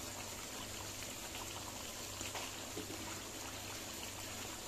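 Thick chicken curry gravy simmering in a karahi, a soft steady bubbling with faint scattered crackles.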